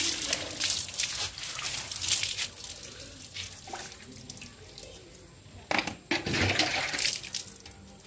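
Water spraying over a motorcycle and splashing off its tank, engine and bodywork as the toothpaste is rinsed away. The spray comes in spurts: heavier at first, easing off in the middle, then heavier again about six seconds in.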